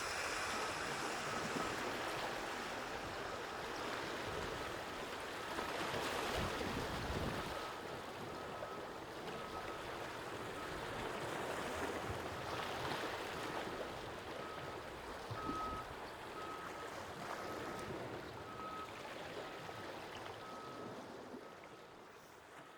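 Sea water washing and lapping along the shore, rising and falling in slow swells, with a faint short high chirp repeating about once a second. The sound fades down near the end.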